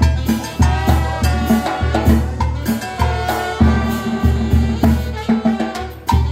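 A cimarrona brass band playing live: trumpets, trombone and saxophone carry the tune over a steady bass drum and cymbal beat of about three hits a second.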